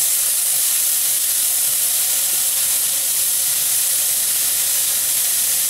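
Stir-fry of shredded cabbage, baby scallops and bell pepper sizzling steadily in a hot wok, a constant high hiss of frying and steam.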